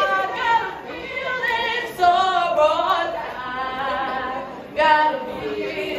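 A group of women singing and chanting together without accompaniment, in loud phrases that start afresh about two seconds in and again near five seconds.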